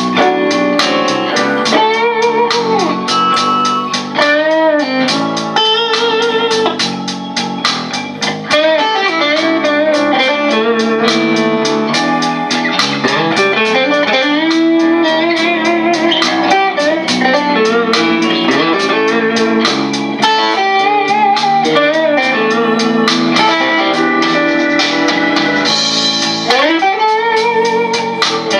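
Squier Stratocaster electric guitar with a crunch tone, playing improvised blues lead lines with frequent string bends over a blues backing track with a steady drum beat.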